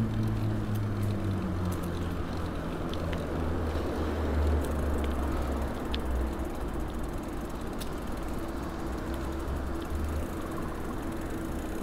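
A motor vehicle's engine running steadily at low revs, a low hum under general street noise, with a few faint scattered ticks.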